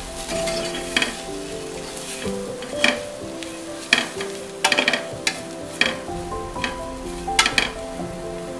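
Metal ladle scraping and knocking against the side of a pressure cooker as a thick masala of onion, tomato and spice powders is stirred and sautéed on a medium flame, with a light sizzle, in irregular strokes. Soft background music with held notes plays underneath.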